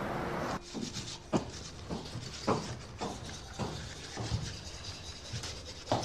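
A music cue cuts off about half a second in, followed by a toothbrush scrubbing teeth and a few irregular footsteps on a wooden floor.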